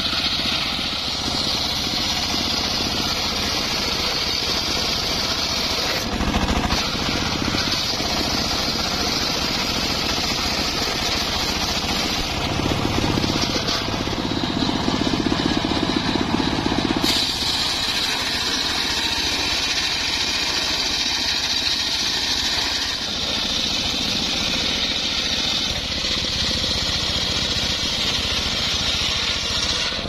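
Homemade circular sawmill ripping an acacia log lengthwise: the large circular blade gives a steady high whine as it cuts through the wood, over a low machine rumble. The sound shifts abruptly about 6 and 17 seconds in.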